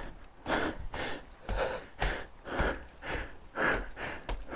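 A person breathing hard through the mouth while climbing a long flight of steps, panting in quick, even breaths about twice a second. There are faint low thumps under some of the breaths.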